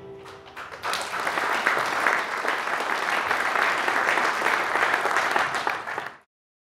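Audience applauding in a large hall, a dense patter of many hands that starts about a second in and is cut off abruptly near the end.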